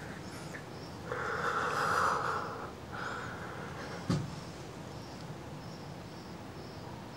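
A man breathing heavily close to the microphone: a long noisy breath about a second in, a shorter one near three seconds, then a sharp click a second later.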